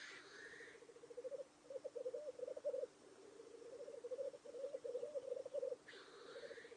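Black grouse at a lek: several males giving their low, bubbling rookooing song in overlapping phrases. Hoarse hissing calls cut in at the start and again about six seconds in.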